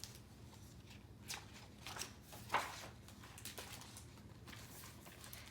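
Faint rustling with a few soft taps: pages of a picture book being handled and turned, over a low steady hum.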